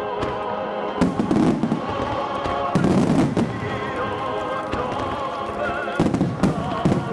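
Aerial fireworks shells bursting and crackling over music with a singing, vibrato-laden melody: a cluster of bangs about a second in, another about three seconds in, and a rapid string of bursts from about six seconds on.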